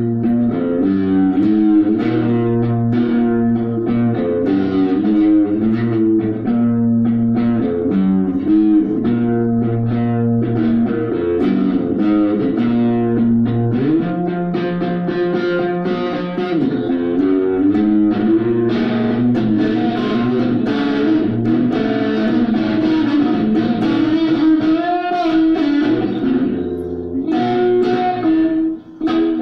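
Electric guitar being played: a steady stream of picked notes and chords, with a brief break just before the end.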